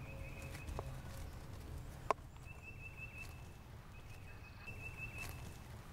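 Quiet outdoor ambience: a faint, thin high trill that comes and goes several times over a low rumble, with one sharp click about two seconds in.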